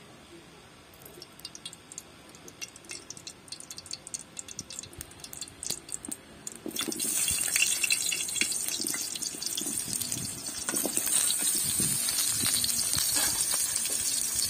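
Cooking oil in a hot karahi crackling and spitting, the pops growing denser. About seven seconds in, cut raw potato pieces go into the hot oil and it breaks into a loud, steady sizzle.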